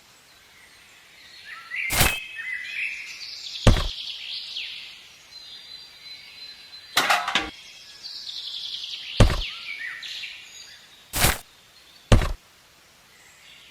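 Birds chirping, broken by about six sharp knocks spaced one to three seconds apart.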